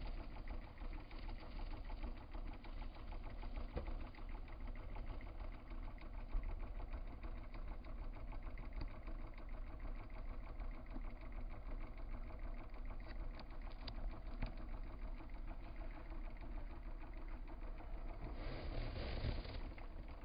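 Mondial Super Power 30 cm six-blade electric fan running steadily: an even motor hum with a fast, fine clatter.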